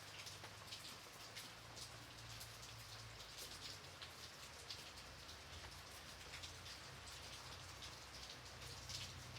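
Gentle, light rain falling steadily, with many separate drops ticking on a surface over a soft hiss. A faint, steady low rumble lies underneath.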